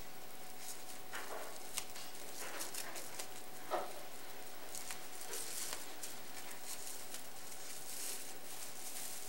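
Strips of plastic-bag yarn (plarn) rustling and crinkling as hands loosen a knot and work the loops even. The crinkles come irregularly, with a sharper crackle a little under four seconds in.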